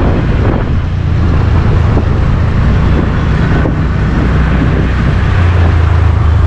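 Motorcycle on the move: wind rushing over the microphone over a steady low engine and road rumble, which grows stronger about five seconds in.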